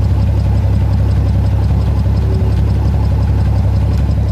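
Rambler engine's exhaust note at idle, heard at the tailpipe: it runs steady and loud with the compression loss of a dead number 5 cylinder. The owner suspects a stuck or burnt valve, a bad seat or a blown head gasket.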